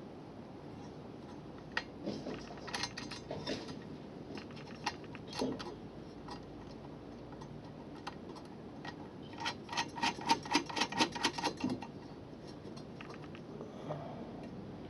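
Scattered metallic clicks and taps from hand tools and mounting hardware while a side step is bolted onto a pickup. About ten seconds in comes a quick run of about ten ticks, four or five a second.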